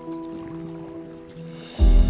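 Background music: soft sustained notes, then a short rising swell near the end that breaks into a much louder section with deep bass.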